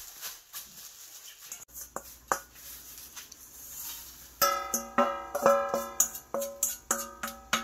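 A couple of light knocks, then from about halfway a tune of short, ringing notes in quick succession: background music.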